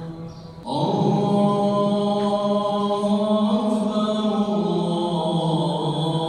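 A man's voice chanting in long, drawn-out held notes that step from one pitch to another, with a short pause for breath just under a second in.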